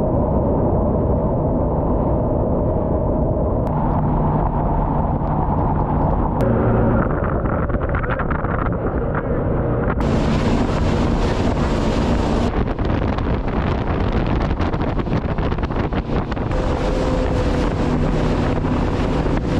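Jet boat engine running steadily, with heavy wind buffeting the microphone.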